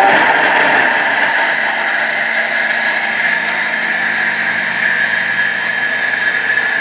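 Countertop electric blender running steadily at speed, grinding chunks of hard Parmigiano and pecorino cheese; a little louder in the first second.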